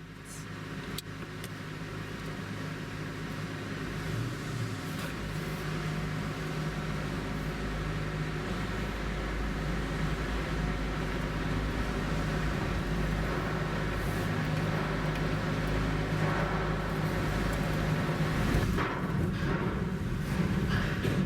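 A car driving slowly, its engine running with a steady low hum and tyre and road noise. It rises in level over the first seconds, and a few light knocks come near the end.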